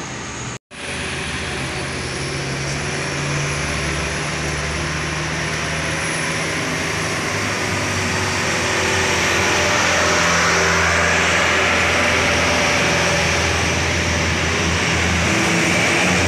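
Diesel coach bus engines running as buses come round a bend and pass close by, with a low engine hum under tyre and air rush. The sound grows louder in the second half as a bus draws near. It breaks off for an instant less than a second in.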